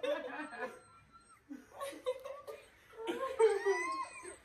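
People laughing in short spells, with a few indistinct voiced sounds mixed in; the loudest laugh comes about three seconds in.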